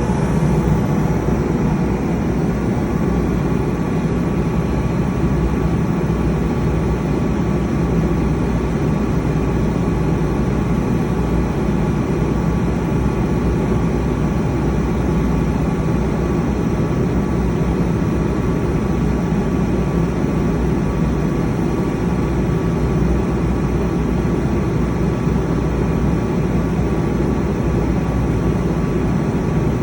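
The diesel engine of a 100 kW Multiquip generator running steadily under a forced regeneration, which burns off the soot left by regular under-loading. The sound is a constant, heavy low hum with a steady whine on top.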